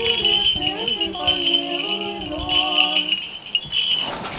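Orthodox service chant: a few voices sing a slow melody that steps between held notes, over a steady high jingling of small bells. The singing stops about three and a half seconds in, and the jingling stops shortly after.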